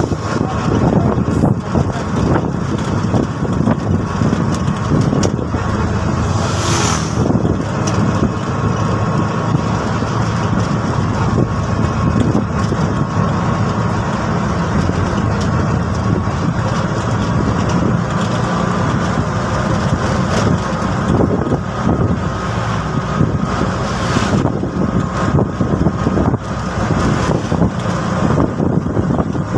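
TVS King Deluxe three-wheeler running along the road, heard from inside the cab, its engine mixed with steady road and wind noise. Two brief louder rushes of noise stand out, about a quarter of the way through and again near the end.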